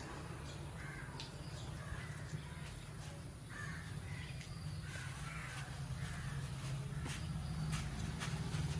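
Birds calling: short calls repeated about once a second, over a steady low rumble.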